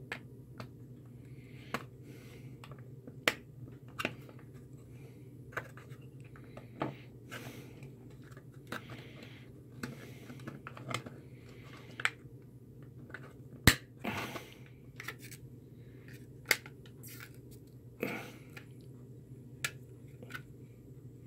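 Clear acrylic panels of a clock kit enclosure being pressed and snapped into place by hand: irregular sharp plastic clicks and short scrapes, the loudest click a little past the middle.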